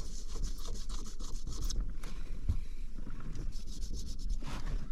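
Alcohol wipe rubbing back and forth on the inside of a truck's windshield glass, cleaning it before the mirror is glued on. Quick wiping strokes for the first second and a half or so, fainter in the middle, and again near the end.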